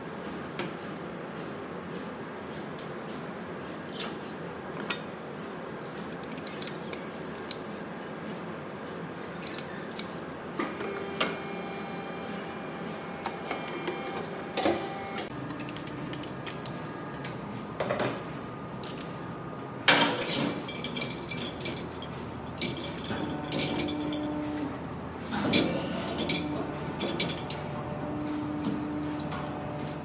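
Scattered metal clinks, taps and knocks from handling a steel multi-cavity mould on a silicone moulding press, over a steady workshop hum. The loudest knock comes about two-thirds of the way through.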